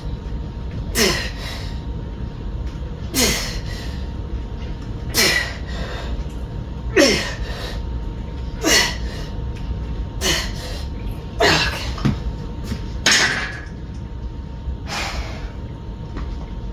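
A man's sharp, effortful exhales, each with a short grunt that falls in pitch, about one every one and a half to two seconds, on each rep of barbell bent-over rows.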